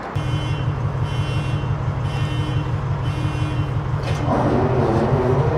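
Class 66 freight locomotive's EMD two-stroke V12 diesel running with a pulsing low rumble, its revs climbing about four seconds in. An electronic beep repeats about once a second over it.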